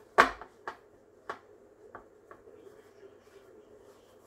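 Ceramic loaf pan knocking on a granite countertop as dough is pressed into it by hand: one sharp, loud knock with a dull thud just after the start, then a few lighter taps and clicks.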